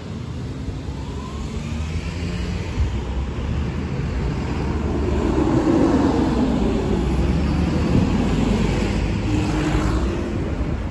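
Small garbage compactor trucks driving past on the road. Their engines get louder as they approach, are loudest when passing close by in the second half, then ease off near the end.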